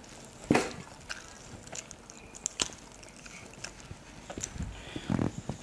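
Close sounds of eating rice and curry by hand: scattered wet smacks and clicks of chewing and lips, with fingers squelching and mixing rice on a plate. The loudest smack comes about half a second in, and a short cluster of them comes near the end.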